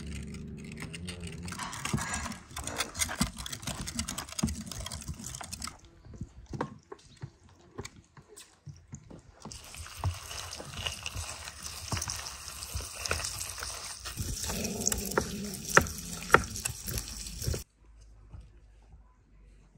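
Manual meat grinder pushing raw beef and then onion through its plate: wet squelching and crackling with many sharp clicks. It stops for a few seconds in the middle and again shortly before the end.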